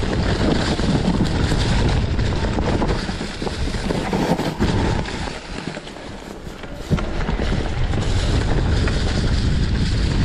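Wind buffeting the camera microphone, mixed with the rattle and tyre noise of a mountain bike on rough singletrack. It eases off for a couple of seconds past the middle, then comes back with a sharp knock.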